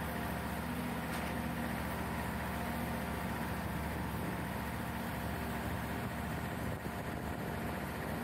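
Heavy truck's diesel engine running steadily at a constant speed while it drives a truck-mounted knuckle-boom crane lifting a pallet of concrete blocks.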